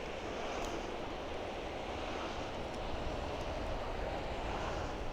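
Distant airliner jet engines, a steady rumbling hiss that swells slightly midway.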